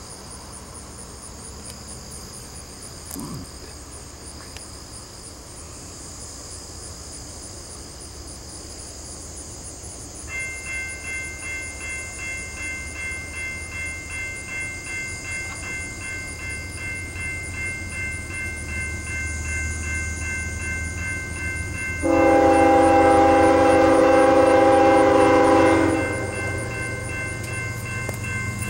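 A railroad grade-crossing bell starts about a third of the way in and rings in steady, even strokes, while crickets chirp throughout and the low rumble of an approaching Norfolk Southern diesel freight train builds. Near the end the locomotive's air horn sounds one long blast of about four seconds, the loudest sound, the opening of its grade-crossing horn signal.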